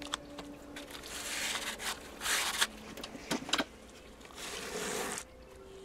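Paper towel rubbed and scraped over an EPP foam wing to wipe off excess CA glue, in a few short strokes with a couple of small clicks between them.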